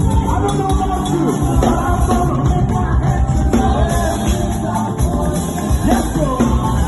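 Live gospel praise music: drums, piano and bass playing a groove, with singing over it.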